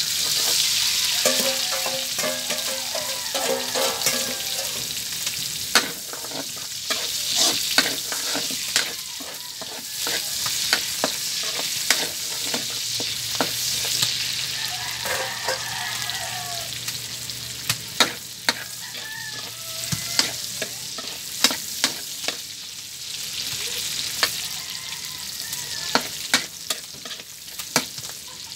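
Chopped aromatics sizzling in hot rendered pork fat in a steel wok, stirred with a metal spatula that scrapes and clinks against the pan many times.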